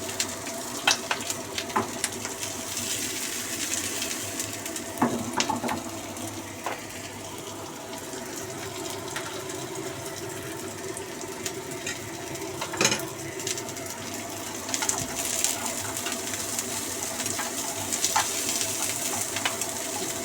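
Ginger frying in a little oil in a pan, sizzling steadily, with a few sharp knocks against the pan.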